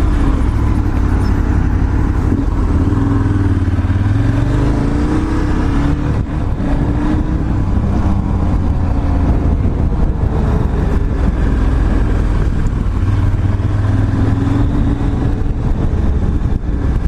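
Motorcycle engine running at low speed, its pitch rising and falling a few times as the bike slows and pulls over.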